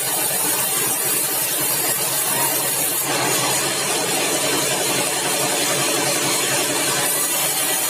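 Sawmill machinery running steadily, a loud, dense mechanical noise with no clear rhythm. It grows fuller from about three seconds in until about seven seconds.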